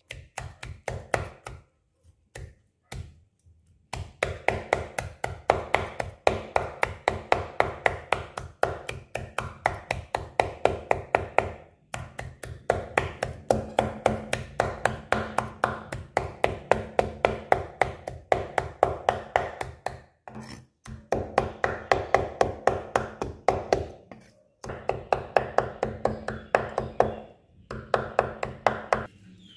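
Steel cleaver chopping red chillies on a wooden chopping board, mincing them fine. Rapid, even chops at about three to four a second, in long runs broken by a few short pauses.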